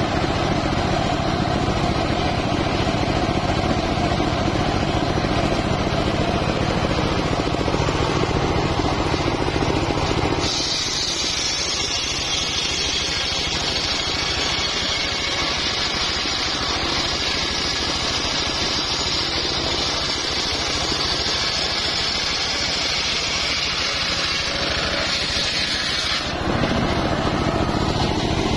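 Homemade circular sawmill ripping a large sengon log: the engine running steadily under the whir of the big blade cutting through the wood. About ten seconds in, the sound changes abruptly to a higher, hissier cutting noise with little of the low engine sound. Near the end the low engine sound returns just as suddenly.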